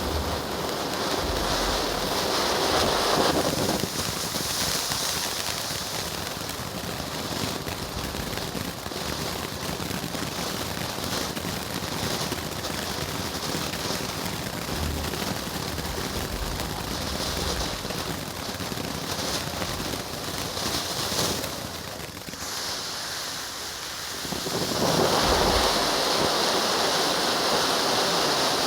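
TG5033 'Alarm Clock' firework burning: a dense hiss of crackling sparks from its titanium crackling torches, with a few low thumps. It eases off briefly about 22 seconds in, then comes back louder with super crackling near the end.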